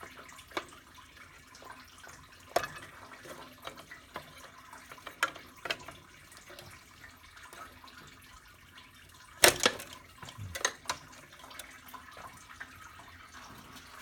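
Scattered sharp metallic clicks and knocks of a wrench working on steering line fittings, with the loudest cluster about nine and a half seconds in.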